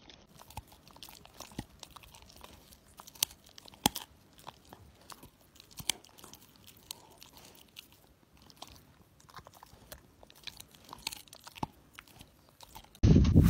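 A husky chewing and crunching on something hard in its mouth: quiet, irregular crunches and clicks of its teeth.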